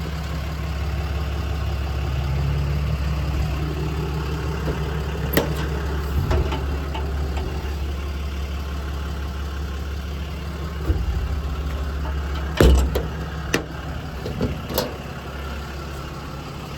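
Ram 5500's 6.7-litre Cummins diesel idling steadily, with a few sharp knocks and clicks over it, the loudest about two-thirds of the way through.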